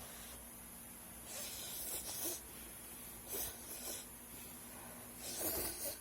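Close-miked eating sounds over a bowl of instant noodles: four short, airy slurps and breaths, the longest near the end.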